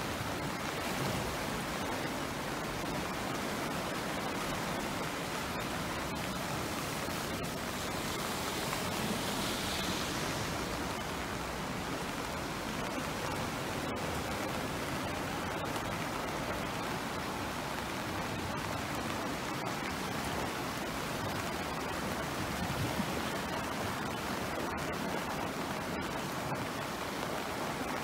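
Floodwater of the swollen Kyll river rushing past in a steady, even rush.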